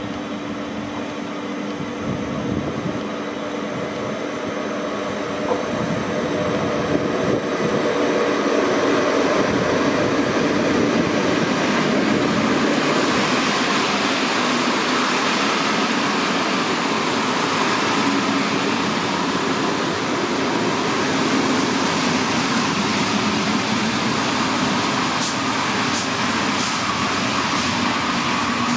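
Locomotive-hauled passenger train of CFR coaches running along a station platform. The steady wheel-and-rail noise grows louder a few seconds in as the coaches roll past, with a few sharp high wheel or brake squeaks near the end.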